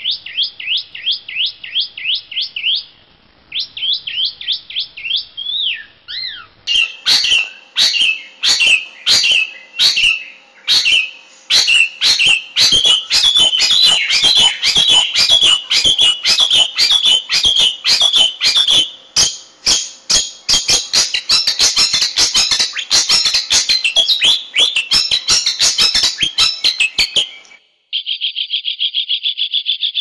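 Long-tailed shrike (cendet) singing. It opens with quick repeated down-slurred whistles, about four a second. After a short pause comes a dense, loud run of sharp, harsh chattering notes that grows busier. Near the end it cuts off abruptly and a fast, even buzzing trill takes over.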